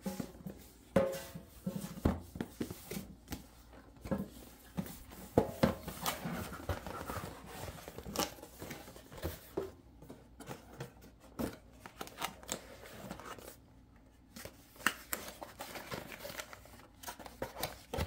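A cardboard box being unpacked by hand: irregular taps, knocks and scrapes as the lid and flaps are opened and the inner cardboard tray is lifted out, with a longer sliding scrape of cardboard partway through.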